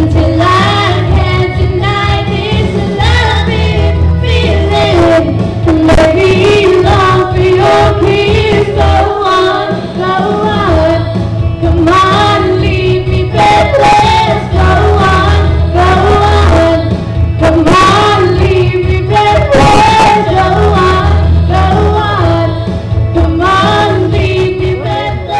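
Girls' voices singing a song over a backing track with a steady, heavy bass line.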